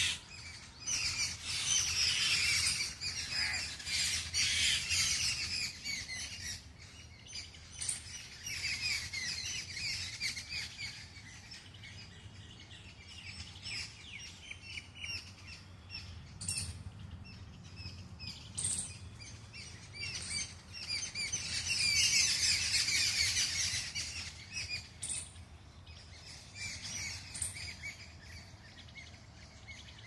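Small birds chirping and twittering in a busy woodland chorus of high, quick calls that swell and fade, loudest at the start and again about two-thirds of the way through.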